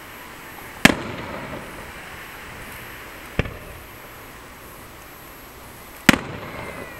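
Aerial firework shells bursting: two loud booms about five seconds apart, one about a second in and one near the end, with a fainter bang between them. Each loud boom trails off in an echoing rumble.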